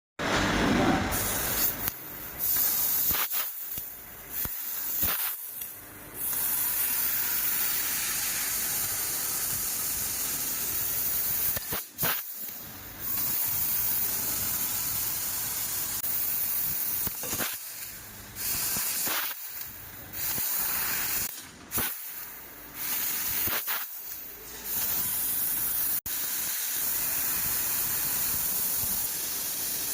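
CNC laser cutting machine, assist gas hissing from the cutting head in long, steady stretches that cut off and resume many times as the head moves between cuts.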